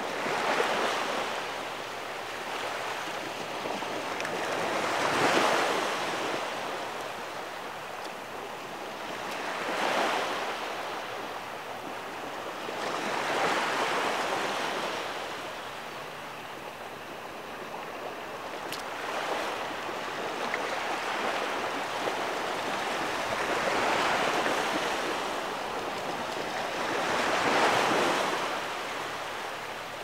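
Ocean surf washing up onto a sandy beach, each wave swelling and fading every four to five seconds.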